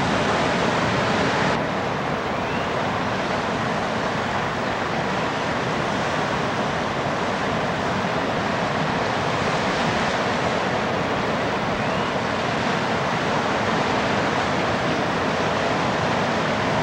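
Ocean surf breaking and washing in, a steady rush of noise, with wind on the microphone.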